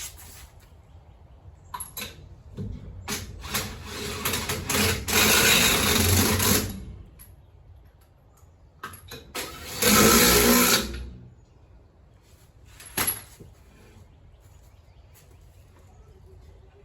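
A power tool runs in two loud bursts, the first building up over a couple of seconds and lasting about two seconds at full, the second about a second long, with scattered clicks and knocks of work around them.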